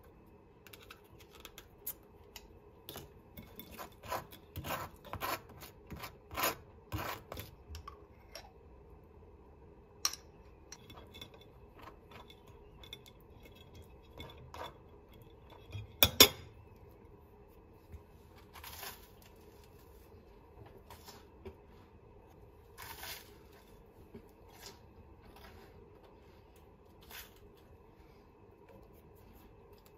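Metal table knife scraping butter and jam across a slice of toast, in a run of quick strokes, with clinks of knives against a ceramic plate. The loudest sound is one sharp clink about halfway through.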